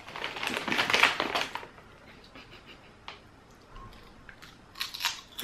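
Plastic crisp bag rustling and crinkling as a hand reaches in, then near the end a potato crisp crunching as it is bitten.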